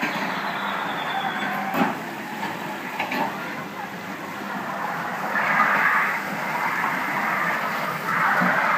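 Rotating children's amusement ride running: a steady mechanical rumble and hiss, with two sharp knocks about two and three seconds in, growing louder about five seconds in and again near the end.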